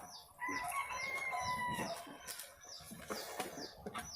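A rooster crowing once, a held call of about a second and a half, with short high chirps repeating throughout.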